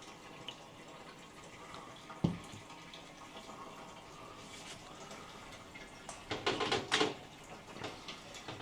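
Quiet sounds of houseplants being handled and watered, with faint water sounds throughout. There is a light knock about two seconds in and a short burst of noisy handling about six to seven seconds in.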